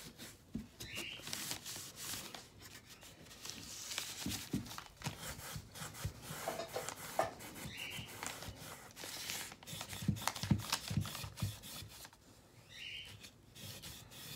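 Cloth rag rubbing wood stain into a bare wooden frame, in irregular scratchy strokes with small knocks and scrapes as the frame is handled.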